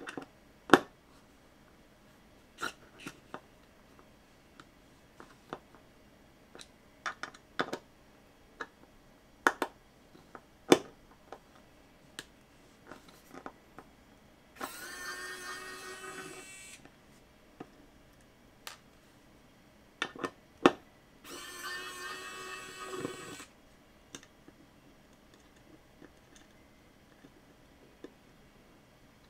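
Screwdriver working small screws out of an opened hard drive: scattered metal clicks and taps of the tool and screws. Twice, about halfway through and again some six seconds later, a steady pitched sound lasts about two seconds.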